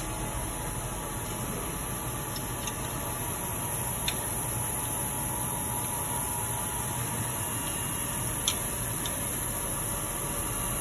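Steady mechanical hum and hiss of machinery or ventilation, with a few faint, scattered ticks.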